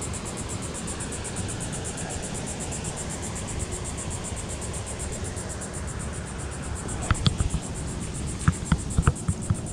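Insects chirping in a fast, even pulse over a low, steady rumble. From about seven seconds in there is a run of short, sharp knocks and taps.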